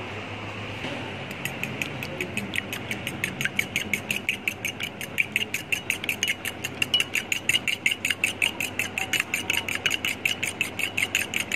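Two raw eggs being beaten in a glass bowl with a metal utensil: quick, even clinks of metal against glass, about six a second, starting a second or so in.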